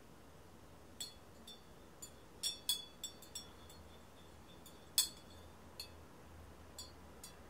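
About a dozen light clinks and taps of a stemmed drinking glass being handled and lifted, several leaving a brief high ring. The loudest clink comes about five seconds in.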